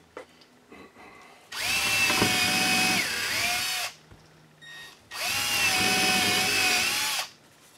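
Cordless drill driving a screw through a wooden bracket into a wall stud, in two runs of about two and a half and two seconds. In the first run the motor's whine sags briefly under load near the end. The owner afterwards finds he had not tightened the bit in the chuck.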